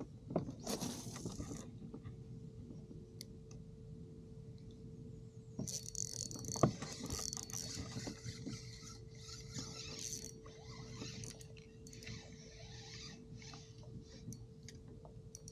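Scraping, tapping and pattering handling noises, busiest from about six seconds in, over a faint steady hum.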